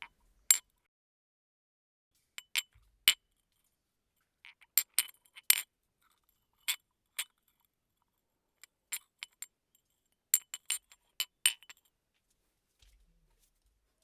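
Tea glass clinking: a run of sharp, bright clinks with a brief ring, some single and some in quick groups of two or three, spaced irregularly with silence between.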